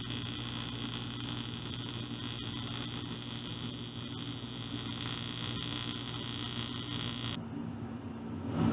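AC TIG welding arc on aluminum, with the welder set at 45 amps: a steady buzzing hum with a hiss. It cuts off abruptly about seven seconds in.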